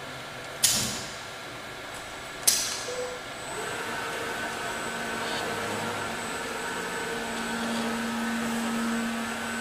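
Robotic bottle palletiser and conveyors running with a steady machine hum that grows fuller from about three and a half seconds in. Two short, sharp hissing bursts about two seconds apart come near the start.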